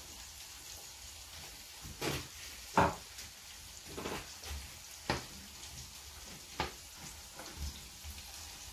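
Lamb ribs, onions and peppers sizzling in a frying pan, with a metal spoon stirring them. The spoon clinks against the pan about five times, loudest about three seconds in.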